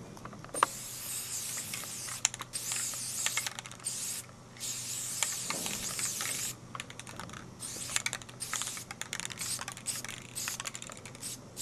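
Aerosol spray-paint can hissing in a string of short and longer bursts as the nozzle is pressed and released while a tag is painted, with quick clicks between bursts.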